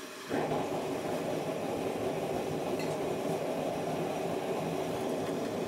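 Gas forge burner catching about a third of a second in after being lit with a handheld torch, then running with a steady, even rush of burning gas.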